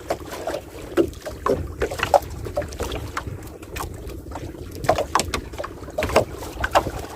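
Water lapping and slapping against the hull of a small fishing boat in irregular splashes, over a steady low rumble of wind on the microphone.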